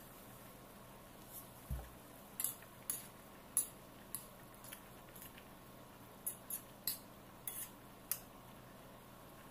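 A cooking utensil clinking and scraping against a stainless steel frying pan as a vegetable stir-fry is stirred, in about a dozen short, irregular strokes. A dull low knock comes near the start.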